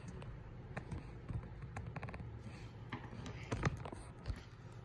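A few faint, scattered clicks and knocks from handling, over a low steady hum.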